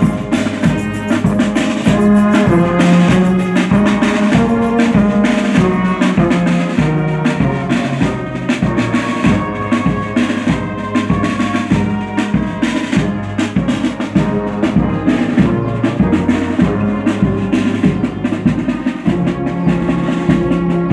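A brass band playing, with sousaphones and other brass sounding sustained notes over a steady beat of bass drum and snare drum.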